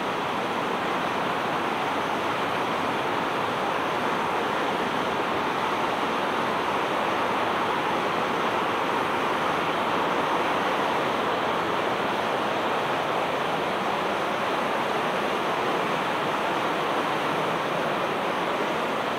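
Rushing water of a mountain river or stream, a steady, even rush with no break.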